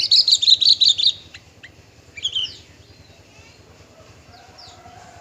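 Javan bush lark (branjangan) singing: a fast, loud run of high chirping notes in the first second, then a few single notes and another short phrase about two seconds in, fading to faint notes near the end.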